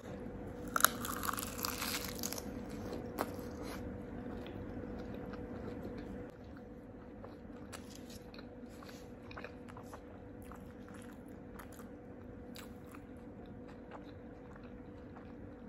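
A bite into crispy fried chicken wrapped in seaweed, crunching loudly about a second in, then close-up chewing and wet mouth sounds that grow quieter after about six seconds. A faint steady hum runs underneath.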